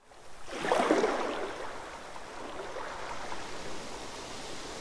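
A rushing, water-like wash of noise, like surf or flowing water, that swells quickly about half a second in, then settles into a steady wash.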